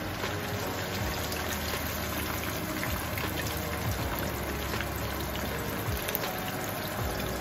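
Hot oil sizzling steadily in a frying pan, with fine crackling throughout.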